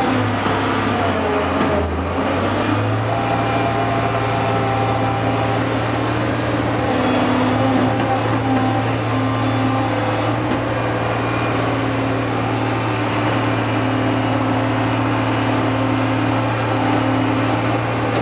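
Steady motor or engine drone with a constant low hum and a fainter tone above it, dipping briefly in pitch about two seconds in.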